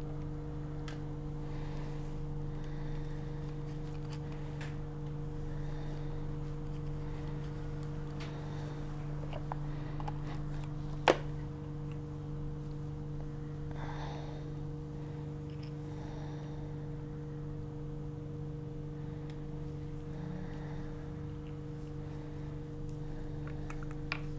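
Steady low hum of lab equipment, with faint clicks and taps of pipetting work. There is one sharp click about eleven seconds in, as the pipette is fitted with a tip from the tip box.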